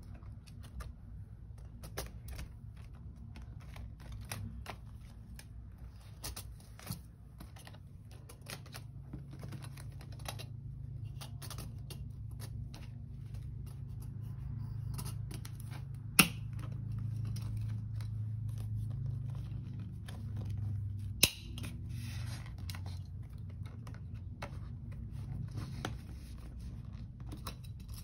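Cash-budget envelopes and a ring binder being handled, with a run of small clicks and rustles as envelopes are moved from one binder to another. Two sharp clicks stand out, one about halfway through and another about five seconds later.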